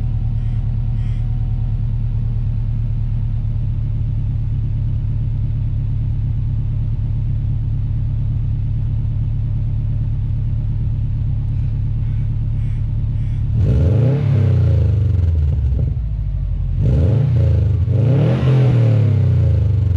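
2012 Subaru WRX turbocharged flat-four idling steadily through a newly fitted Invidia R400 aftermarket exhaust. Near the end it is revved twice, the pitch rising and falling each time.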